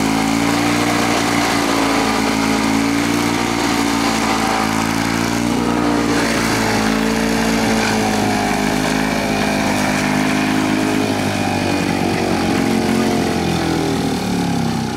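1952 RPM rotary lawn mower's two-stroke engine running steadily, its speed rising and falling unevenly. The carburetor's float needle and seat need fixing, which makes it prone to stalling.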